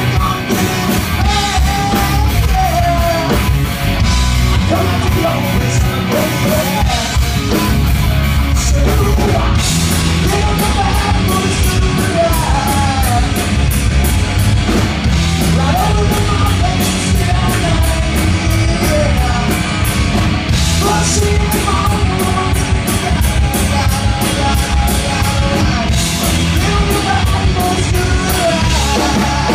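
Live rock band playing loudly: electric guitar, bass and drums with vocals, a steady driving beat throughout.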